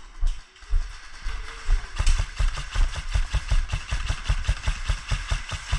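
An airsoft player's running footsteps and the rattle of worn gear, heard as a quick run of thuds and clicks through a body-worn action camera. The thuds come faster and more evenly from about two seconds in.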